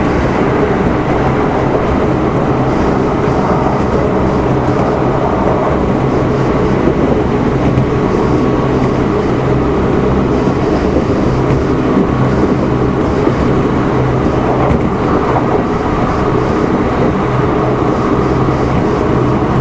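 Running noise inside a Kintetsu 1259-series electric multiple unit's motor car: traction motors and wheels on rail at a steady cruising speed, a constant hum of several steady tones over a loud rumble.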